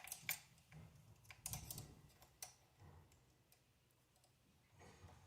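Faint, scattered clicks and light taps of small parts being handled while shims are fitted onto an RC car's rear hub, with a few sharper clicks in the first couple of seconds.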